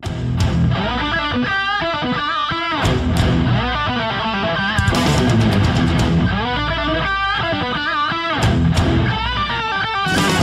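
Loud rock-style intro theme music led by electric guitar, starting abruptly.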